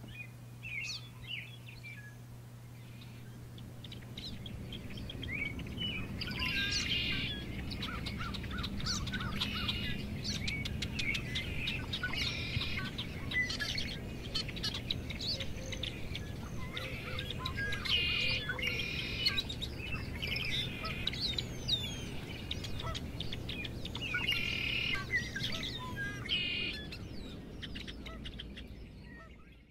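Many birds chirping and singing, with a low steady hum beneath, the birdsong growing busier after the first few seconds and fading out at the very end.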